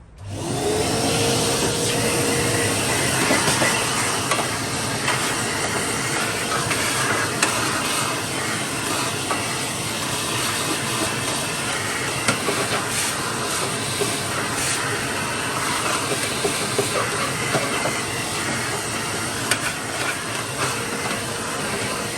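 Power tool with a wire wheel scrubbing surface rust off sheet metal: the motor spins up at the start, then a steady scratchy hiss with scattered sharp ticks as the bristles work the metal.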